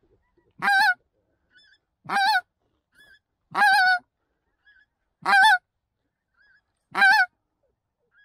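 Hand-blown goose call sounding five loud honks at an even pace, about one every second and a half, calling to incoming geese. Fainter short goose calls sound between the honks.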